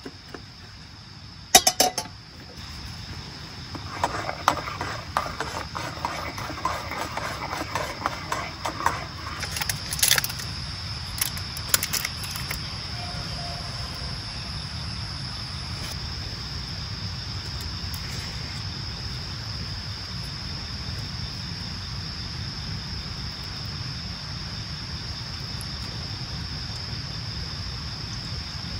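Steady high-pitched chirring of crickets, with sharp metal clinks about two seconds in and a spell of clinking and scraping from a spoon stirring in a steel camping mug about four to nine seconds in, then a couple of single clinks.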